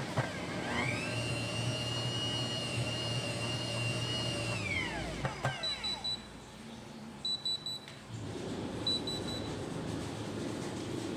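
Bear bread dough maker's kneading motor whining up to speed, running steadily, then winding down about five seconds in as the kneading cycle ends. Its end-of-cycle alarm then gives three short groups of high beeps about a second and a half apart.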